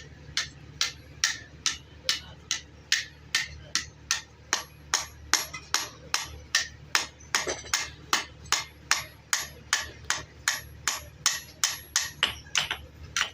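Hand hammer striking repeatedly at a steady, even pace of about two and a half blows a second, each blow sharp with a faint ring.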